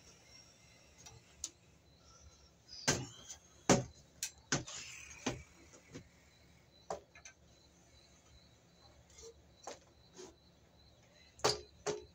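Scattered clicks and knocks of a metal-and-glass lantern porch light fixture being handled, with the loudest knocks a few seconds in, a short falling squeak just before the middle, and more clicks near the end.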